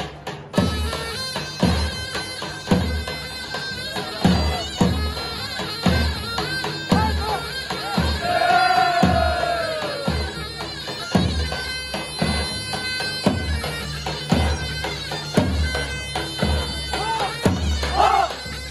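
Live halay dance music: a nasal, reedy wind-instrument melody over a heavy, regular drum beat. Near the end, the men of the dance line shout together.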